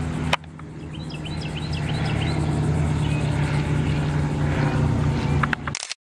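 Small high-wing single-engine propeller plane droning overhead, growing steadily louder as it comes over low. A few short high chirps are heard about a second in, and the sound cuts off abruptly near the end.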